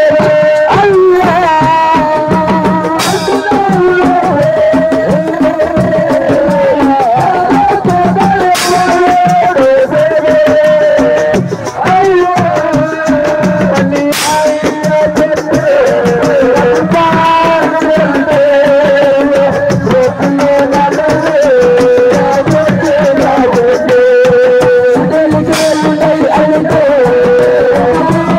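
Live Senegalese assiko band music: a wavering lead vocal line over fast, dense hand-drum percussion, with a few sharp accented strikes every several seconds.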